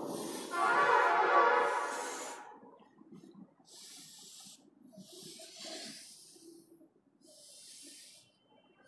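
Chalk scraping on a chalkboard as lines are drawn: separate scratchy strokes about a second each. The longest and loudest comes in the first two seconds, followed by three shorter, fainter ones.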